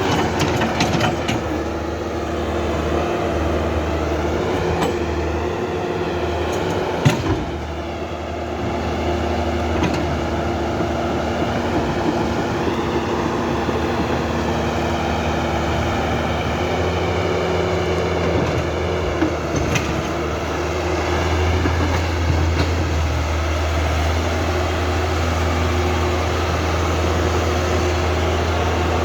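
Electric motors and plastic gearboxes of a Huina 1551 remote-control excavator whirring steadily, their whine rising and falling in pitch as it works, with a sharp click about seven seconds in.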